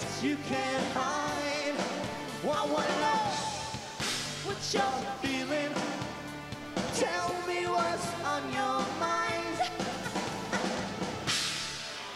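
Live rock band playing with electric guitar, drum kit and sung vocals, the sound dying away near the end.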